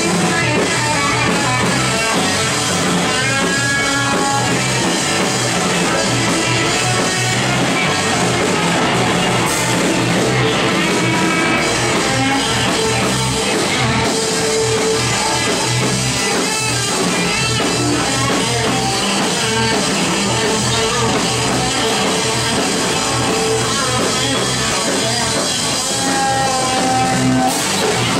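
Live rock band playing loud, with an electric guitar to the fore over drums; the guitar plays bending, wavering lead notes.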